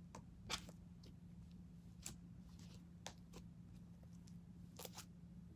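Butter slime being kneaded by hand, giving a few faint, scattered sticky clicks and pops, over a steady low hum.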